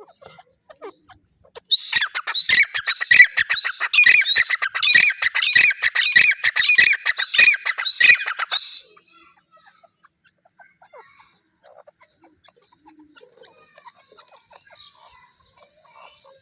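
A pair of grey francolins (Dakhni teetar) calling: a loud, fast run of repeated high-pitched calls starting about two seconds in and lasting about seven seconds, then only faint scattered sounds.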